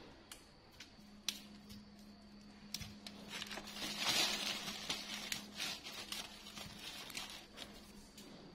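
Thin plastic bag crinkling and rustling as rambutan fruit are handled and pulled off their branches, with scattered small clicks. The crinkling is loudest about four seconds in.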